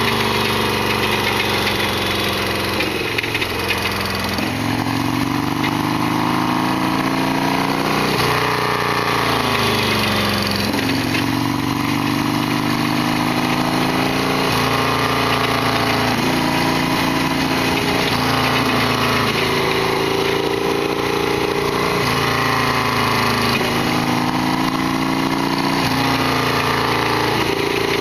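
Harley-Davidson Sportster XL1200R's air-cooled V-twin engine running on the move, its pitch climbing and then dropping back every few seconds as the revs rise and fall.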